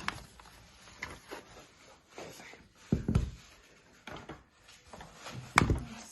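Handling noise from the phone's box and packaging being handled: soft rubbing and light taps, with a louder knock about three seconds in and a sharp click shortly before the end.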